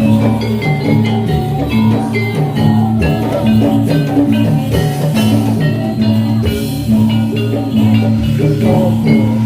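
Javanese gamelan music accompanying a jathilan dance: bronze metallophones play a quick repeating melody over drum strokes and a held low tone.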